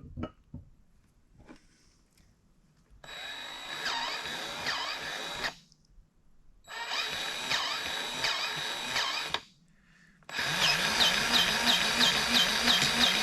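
A small handheld power tool's motor, drill-like, run in three bursts of about two to three seconds each, the last one the loudest, with a faint regular ticking in it.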